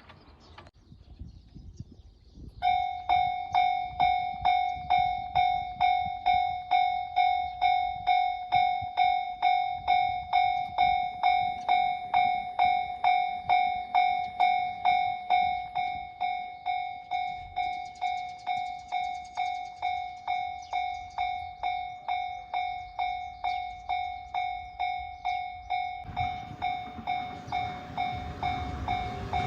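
Japanese railway level-crossing warning bell starting up about two and a half seconds in, a ringing "kan-kan" at about two strikes a second. Near the end the rumble of an approaching train rises under it.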